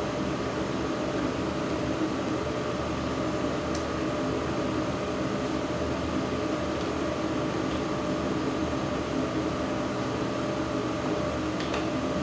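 Steady hum of a fan or blower motor running, with a faint click about four seconds in and another near the end.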